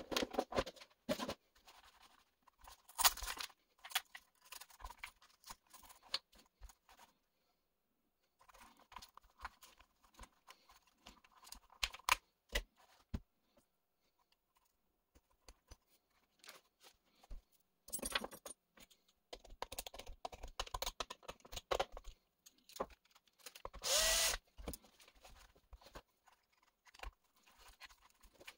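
Small clicks, rattles and scrapes of hands working on an Arrma Infraction 3S BLX RC car: the plastic body coming off the chassis, then a hex driver turning screws in the chassis. Two louder bursts of handling noise come about 18 and 24 seconds in.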